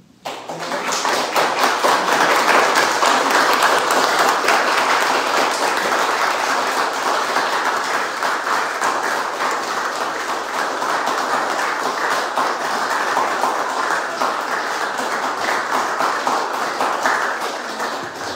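Audience applauding: many people clapping at once. The applause starts abruptly, holds steady and tails off near the end.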